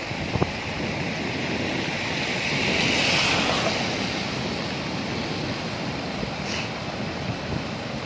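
Flooded river water rushing over a weir, a steady turbulent churning of whitewater that swells louder about three seconds in.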